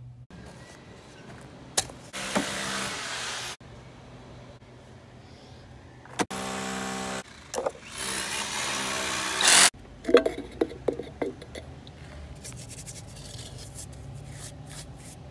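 Cordless reciprocating saw running in three short bursts, about a second each, cutting down a PVC cleanout pipe. Then a cluster of sharp knocks and clicks.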